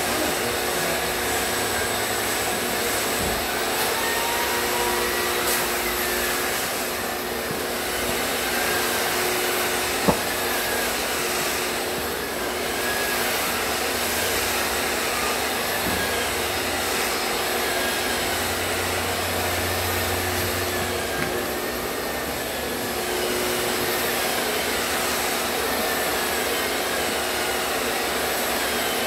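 Long-reach drywall sander grinding the popcorn texture off a ceiling, with its dust-extraction vacuum drawing through the hose: a steady whirring rush, with one sharp click about ten seconds in.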